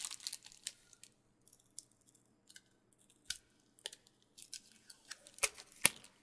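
Fingernails picking and scratching at the cellophane shrink-wrap and tape on a boxed laserdisc set: scattered small crinkles and clicks, irregular, with a couple of sharper clicks near the end.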